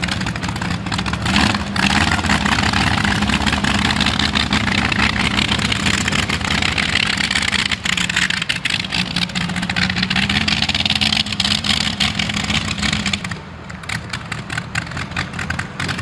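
Modified pulling tractor's engine running flat out under load, loud and fairly steady in pitch. About 13 seconds in, the power drops off suddenly to a lower run with scattered crackling pops.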